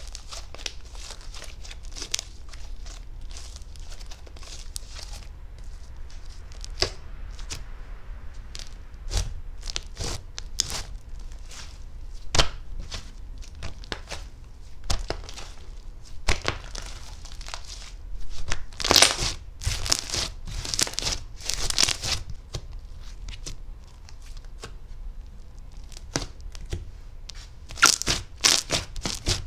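Butter slime being handled by hand: a run of soft sticky clicks and pops with crackling, tearing sounds, growing louder in a cluster about two-thirds of the way through and again near the end.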